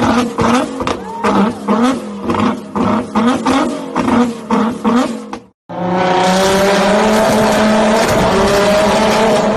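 Nissan GT-R R35's twin-turbo V6 exhaust: quick repeated throttle blips, about two a second, then after a brief break the engine is held at steady high revs that creep slightly higher.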